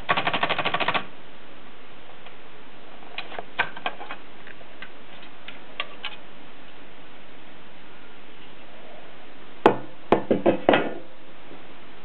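Junior Brillant portable typewriter: a quick run of about a dozen sharp typebar clacks in the first second, then a few scattered light clicks. About ten seconds in comes a cluster of louder metal knocks as its top cover is handled and lifted off.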